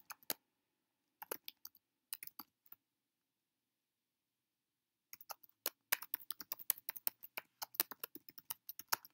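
Typing on a computer keyboard: a few scattered keystrokes in the first three seconds, a pause of about two seconds, then a fast, steady run of keystrokes from about five seconds in.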